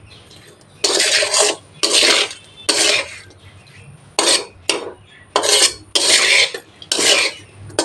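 A spatula scraping and pushing through raw small fish in a metal kadai, in about eight short strokes after a quiet first second, as the fish are mixed with salt and turmeric in the unheated pan.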